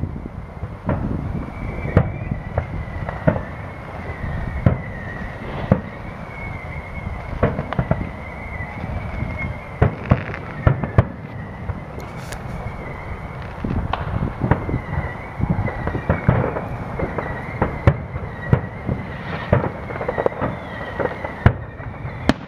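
Distant fireworks display: an irregular run of bangs and crackles from shells bursting far off, several a second at the busiest moments.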